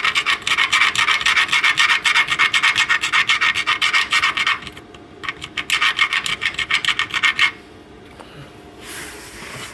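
Slag being scraped and scrubbed off a fresh flux-core weld on a steel chain case, metal rasping on metal in rapid strokes. It runs in two bouts with a short pause about five seconds in, and stops about two seconds before the end.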